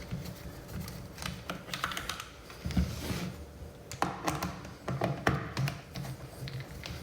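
Irregular light clicks and taps of a hand driver and plastic parts as the screws and button trim come off a steering wheel, with a few sharper knocks about three, four and five seconds in.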